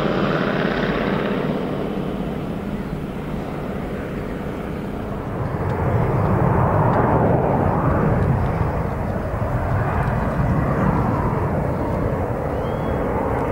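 Avro Vulcan jet bomber's four turbojet engines heard in flight, a heavy rumbling roar that loses its high edge as the aircraft banks away. The sound eases off for a few seconds, then swells again about five seconds in with a wavering, surging rumble.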